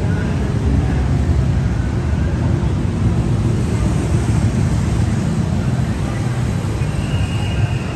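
City road traffic: a steady low rumble of passing car engines and tyres.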